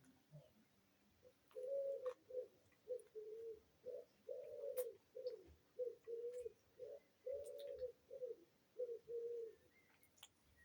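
Pigeon cooing: a run of low notes, some long and some short, in repeated phrases lasting about eight seconds.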